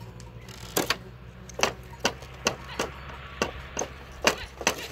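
A series of about nine sharp, irregularly spaced knocks, over a steady low hum.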